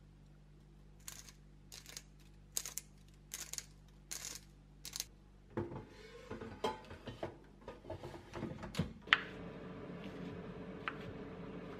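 Pump oil sprayer misting olive oil over hollowed-out round zucchini: six short hisses, about one every 0.8 s. Then clattering and knocks as the air fryer basket is slid into the air fryer, ending in a sharp click.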